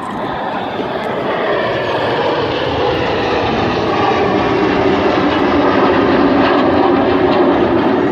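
Formation of Red Arrows BAE Hawk jets flying over, their turbofan engines a continuous jet roar that grows louder over the first few seconds and then holds steady.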